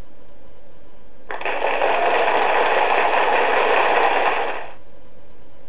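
A burst of rough, hissing noise about three seconds long, starting and stopping abruptly and lacking any high treble, over a steady faint background hiss.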